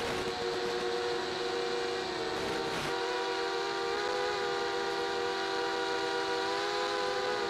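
A model aircraft's motor and propeller running steadily in flight, a sustained droning whine of several tones that shifts slightly in pitch a few times, over a hiss of rushing air.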